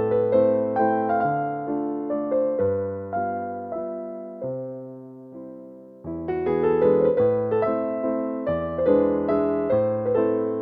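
Background piano music: gentle melodic notes that thin out and fade in the middle, then a fuller, louder passage comes back in about six seconds in.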